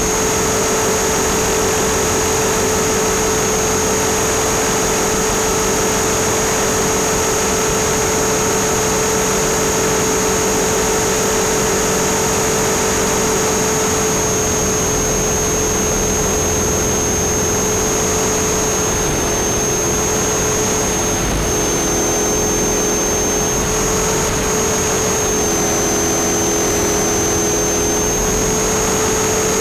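Electric Align T-Rex 450 RC helicopter in flight, picked up close by its onboard camera: a continuous motor whine over rotor noise. The whine steps slightly in pitch a few times as the throttle changes.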